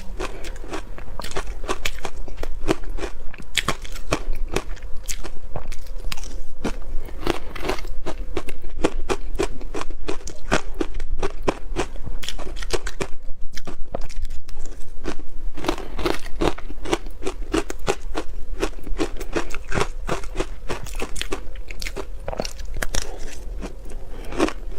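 Close-up crunching of ice being bitten and chewed: rapid, irregular cracks and crunches that run almost without pause, easing briefly about halfway through.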